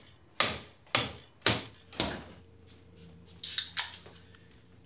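Repeated sharp knocks, four about half a second apart, like something being struck hard. A low steady hum then sets in, with two lighter clicks about three and a half seconds in.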